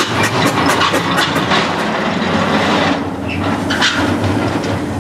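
1906 H.K. Porter compressed-air mine locomotive under way: a steady rush of exhausting air broken by rapid sharp ticks as it rolls along the rails, easing a little about three seconds in.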